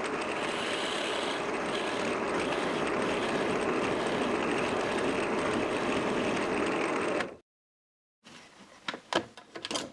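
Drill press running as a 6 mm spade bit bores into the end grain of a short pine rod, a steady whirring cut that stops suddenly about seven seconds in. A few light clicks and knocks follow near the end.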